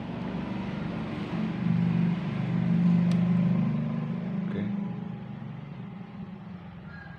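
A motor vehicle's engine passing by: a low hum that rises to a peak about three seconds in, then fades away.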